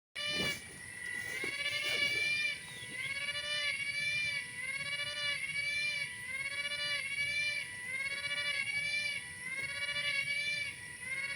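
An unseen animal calls over and over with a wailing, baby-like cry. Each call rises and then falls in pitch, about one a second, over a steady high hiss.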